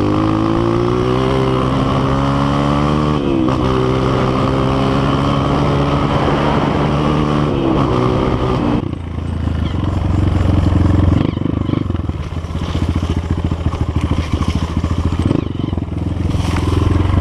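Honda CRF230 trail bike's single-cylinder four-stroke engine accelerating hard, its pitch climbing, dipping at a gear change about three seconds in, then climbing again. Just past the middle the revs drop, and it runs on at lower revs with a rough, uneven beat.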